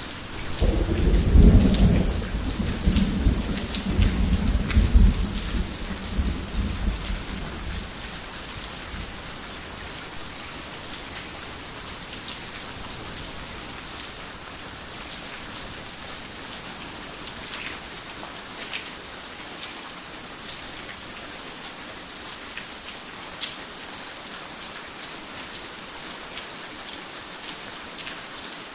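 Heavy rain falling steadily, with close drop ticks, and a loud thunderclap about half a second in that rolls on as a low rumble for several seconds before fading.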